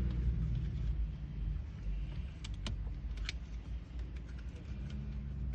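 A few sharp plastic clicks and taps about two and a half to three and a half seconds in, from a door's tweeter cover and trim being worked loose, over a steady low rumble.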